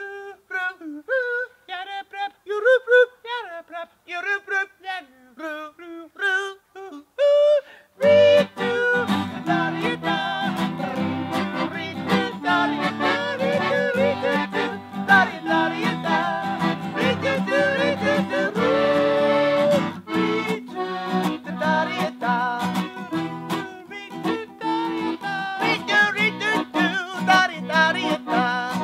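A voice singing alone, wavering and yodel-like, for about eight seconds. Then an acoustic guitar and an accordion come in together and play on with the singing, a folk-style song.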